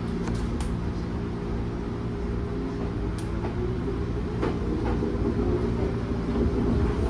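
A 205 series 1000-number electric train heard from inside the car as it starts off. The steady hum of the traction motors rises in pitch from about halfway as the train gathers speed, with a few light clicks and knocks from the car.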